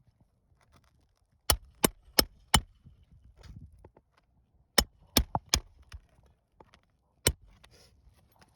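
Hammer blows driving roofing nails to fasten a replacement asphalt shingle: four sharp strikes about three a second, a group of three more, then a single blow near the end.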